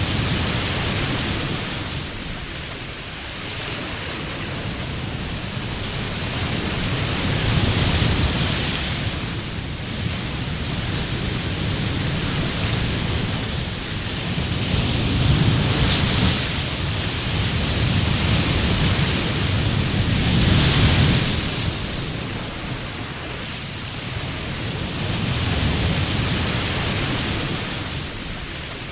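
Sea waves breaking on a beach, the surf noise swelling and fading every several seconds.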